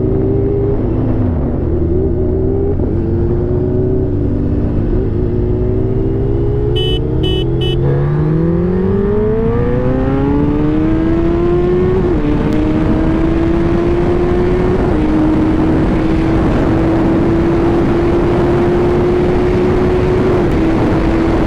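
Sport motorcycle engine heard from on the bike, running low at first, then rising steadily in pitch from about eight seconds in as it accelerates hard. Brief dips in pitch come at the gear changes, and wind rush builds with speed. Three short high beeps sound just before the climb.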